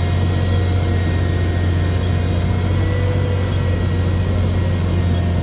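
Komatsu PC400LC-8R excavator's six-cylinder diesel engine running at a steady speed, a deep even hum with no change in pitch, heard from inside the cab.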